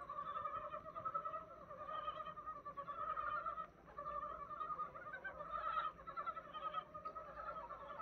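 A chorus of many frogs croaking at once, their rapid calls overlapping into a steady din, with a brief lull about three and a half seconds in.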